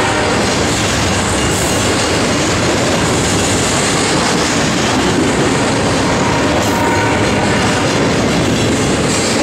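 Double-stack container train of loaded well cars passing close by, its steel wheels making a loud, steady rumble on the rails.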